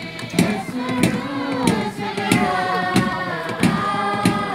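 Group singing for a dance, several voices together, over a steady drum beat of about one and a half strikes a second.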